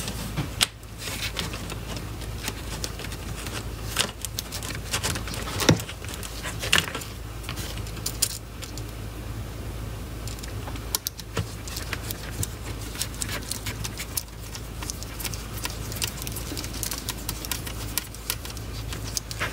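3D-printed plastic frame parts being handled and fitted together on a cutting mat: scattered light clicks and taps of hard plastic, with a few sharper knocks.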